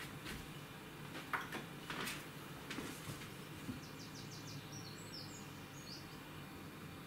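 A few light knocks and clicks from hands handling a PC case, the sharpest about a second in, over a steady low room hum. A brief faint high chirping follows about five seconds in.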